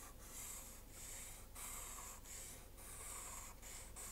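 Fineliner pen drawn across paper in a series of short strokes: a faint scratchy hiss, each stroke about half a second with brief pauses between.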